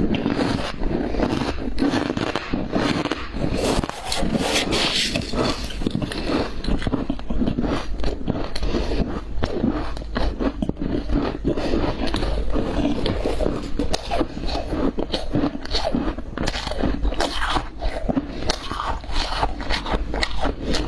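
Close-up biting and chewing of hard, frosty ice: a dense run of irregular squeaky crunches and scraping crackles, one quickly after another.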